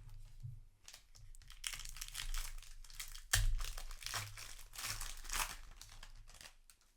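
Foil wrapper of a Magic: The Gathering booster pack crinkling and rustling as it is handled, with a sharp knock about three and a half seconds in.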